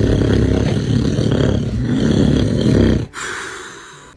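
A man snoring loudly: one long, rough snore that stops abruptly about three seconds in, then a softer breath that fades out.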